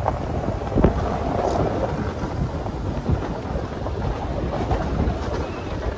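Low rumble of a vehicle driving on a snow-covered, rutted track, with a sharp thump a little under a second in and a few lighter knocks from bumps.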